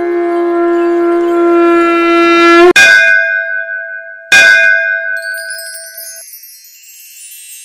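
Musical channel ident: a long blown horn note for almost three seconds, then two sharp bell-like strikes whose ringing tones fade, then a high shimmering cascade of chimes that dies away.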